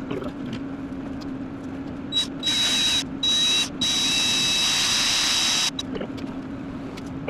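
Power drill running with a high whine, triggered in a few short bursts and then held for about two seconds, drilling out the broken-off starter mounting bolt. A steady low hum sits underneath.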